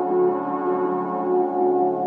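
Ambient background music of held, bell-like tones.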